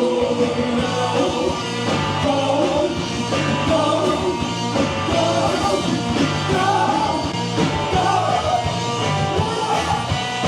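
Live rock band playing loud electric guitar rock, with bass and drums underneath.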